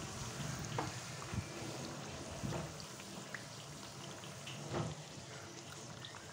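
Puri deep-frying in hot oil in a kadai: steady sizzling and bubbling, with a few light clicks of a steel slotted spoon against the pan as it presses the puri.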